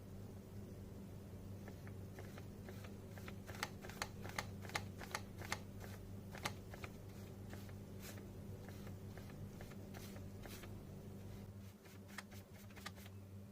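Scattered light plastic clicks and clacks from a mechanical keyboard's keys or keycaps being handled, in irregular clusters over a steady low hum.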